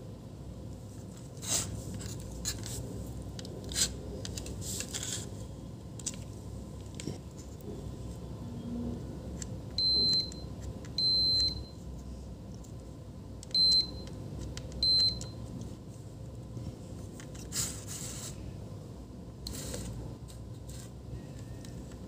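Digital multimeter's continuity beeper sounding four short high beeps, the second one longer, as the probe tips touch points on a laptop motherboard; each beep marks a low-resistance path between the probes. Light clicks and scrapes of the probe tips on the board come in between.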